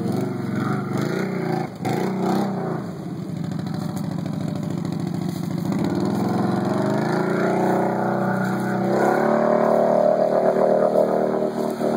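Can-Am Renegade 800 XXC ATV's V-twin engine revving hard under load in deep mud water. The revs rise and fall in quick blips at first, hold steadier, then climb to a high rev that holds through the last few seconds.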